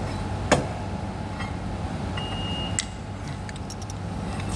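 Tool prying at a jump-pack cable connector: one sharp click about half a second in, then lighter ticks and clicks as it works loose. A brief high beep-like tone sounds around two seconds in, over a steady low hum.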